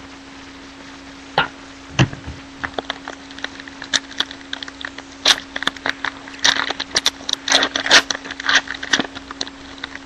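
Sports trading cards and their pack being handled by hand: a quick string of sharp card clicks, snaps and rustles, busiest in the second half.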